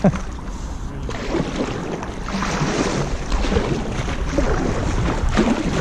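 Kayak paddle strokes splashing through calm canal water, with wind noise on the microphone.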